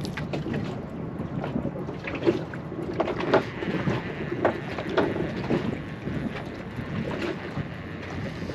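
Water lapping and slapping against the hull of a small boat, with wind buffeting the microphone; several sharp slaps or knocks come through in the middle few seconds.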